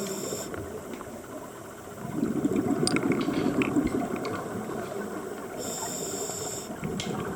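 Underwater sound of a scuba diver breathing through a regulator: a gush of exhaled bubbles about two seconds in, with a hiss of inhalation at the start and again around six seconds.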